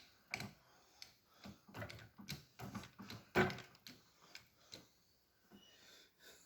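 Irregular metal clicks, taps and knocks of tools and parts being worked while a C-clip is pressed into place, the loudest about three and a half seconds in, thinning out near the end.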